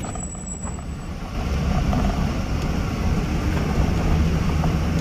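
Safari jeep engine running with its rumbling ride noise as it drives over a stony, gravel track, heard from inside the cab.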